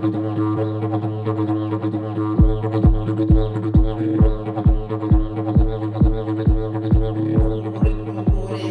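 Fiberglass slide travel didgeridoo playing a steady low drone. From a bit over two seconds in, a rhythmic pulse joins, about two beats a second.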